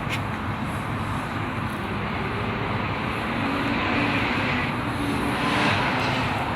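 Strong wind buffeting the microphone: a steady rushing noise with a deep rumble, swelling about four to six seconds in.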